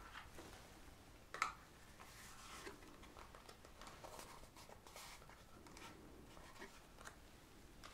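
Faint handling sounds: soft taps and rustles of hands on a beaded tablecloth and on a small box of cards being picked up and opened, with one sharp click about a second and a half in.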